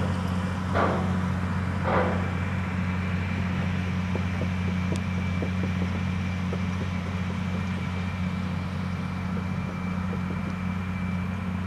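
Tractor's diesel engine running steadily with an even low hum, with two brief scuffing noises about one and two seconds in.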